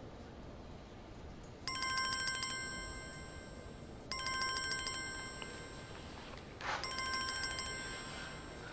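Mobile phone ringing: an electronic ringtone of several steady high tones with a fast trill at its start, heard three times about two and a half seconds apart, each ring fading away. A short burst of rustling noise comes just before the third ring.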